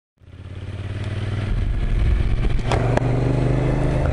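Yamaha MT-07's 689 cc parallel-twin engine running steadily as the motorcycle cruises, heard from the rider's seat, fading in over the first second or two. A couple of sharp clicks about three seconds in.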